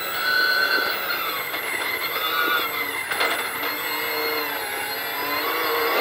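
Toyota Hilux rally-raid car's engine heard from inside the cockpit, its note falling and rising as the driver lifts and accelerates along a dirt track, over road and tyre noise.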